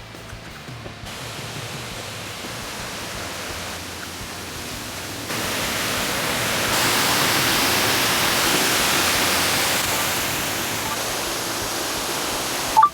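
Waterfall rushing: a steady noise that grows louder in steps, about a second in and again around the middle. A single sharp click comes just before the end.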